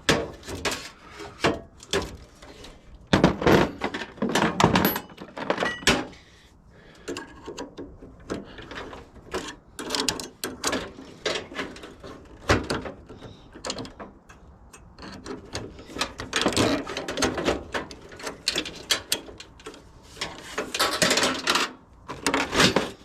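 Irregular clanks, knocks and scraping from cords and metal parts of a water heater being handled and shifted during a teardown for scrap.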